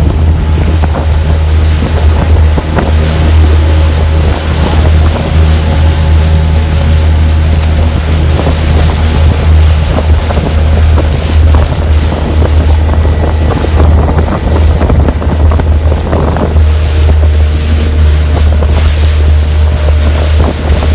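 Engine of a small open motorboat running steadily as a low drone, with wind buffeting the microphone and water rushing past the hull.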